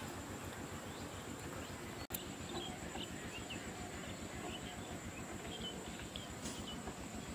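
Rural outdoor ambience: scattered short bird chirps over a steady high-pitched insect drone, with a momentary dropout about two seconds in.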